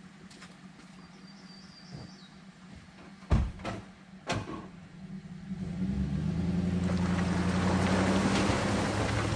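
A few sharp knocks, then the bass boat's outboard motor starts a little past halfway and settles into a steady idle.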